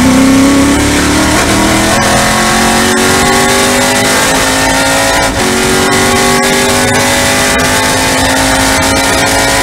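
TA2 race car's V8 heard from inside the cockpit, pulling at full throttle down a straight. The pitch rises steadily and is broken by upshifts, the clearest one just past five seconds in.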